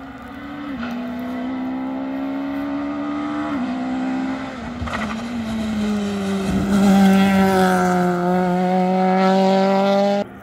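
Rally car engine accelerating up the road toward and past the listener, its revs climbing, dropping twice at gear changes, then holding high and loudest as it goes by. The sound cuts off suddenly near the end.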